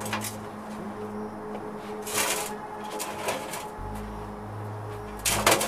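Leather-gloved hands scraping and rustling against a sand-casting flask: a few short scrapes, with a louder cluster near the end, over a steady low hum.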